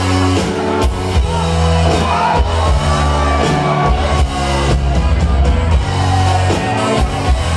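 Live band playing loudly: a bass line and a steady drum beat under keyboard, electric guitar, saxophone and trombone.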